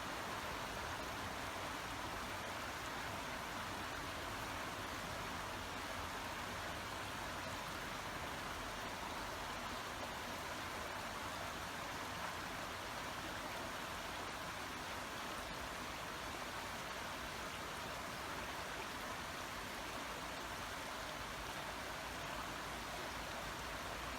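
Babbling brook: water running in a steady, even rush.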